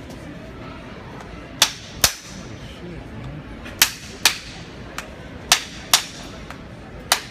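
Farrier's hammer striking the nails of a horseshoe on a draft horse's hoof: about eight sharp metallic taps, mostly in pairs about half a second apart, with pauses between the pairs.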